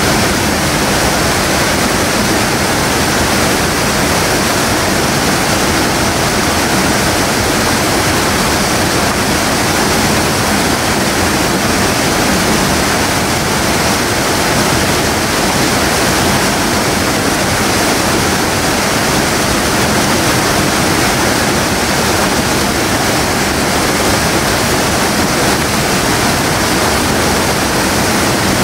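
Water pouring through a fish ladder's narrow notch and crashing into a foaming pool below: a loud, steady rushing that does not change.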